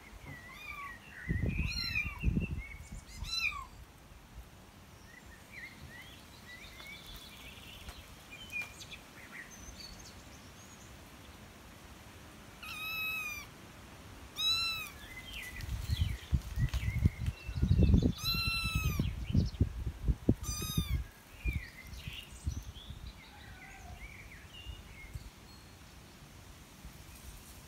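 Kittens mewing: high, arching meows, a few near the start and more through the middle, with faint short chirping calls between them. Low rumbling bumps come in two stretches alongside the meows and are the loudest sound.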